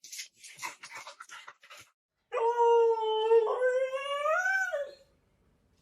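A dog makes a few short breathy sounds, then one long howl starting about two seconds in. The howl lasts about two and a half seconds, its pitch climbing near the end before it drops away.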